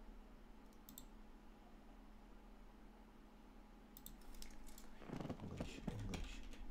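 A few sharp clicks of a computer keyboard and mouse, in a small room. About five seconds in comes a louder short sound that falls in pitch.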